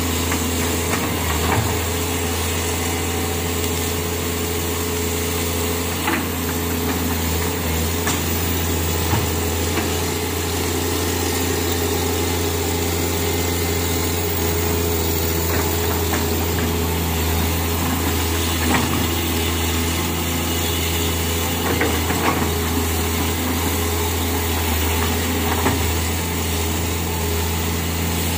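Kobelco hydraulic excavator's diesel engine running steadily with a low hum, with a few sharp clicks and knocks scattered through.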